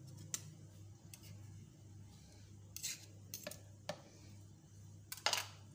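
Metal spoon clinking and scraping against a glass blender jug and jar as peanut butter is spooned in: a few scattered taps and short scrapes, the loudest cluster near the end.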